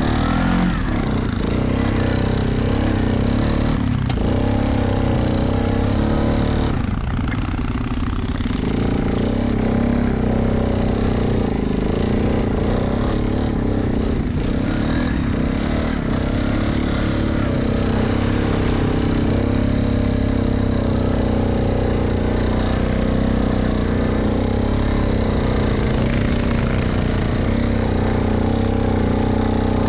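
ATV engine running under throttle while it is ridden through snow, its note rising and falling with the throttle. It eases off briefly about seven seconds in.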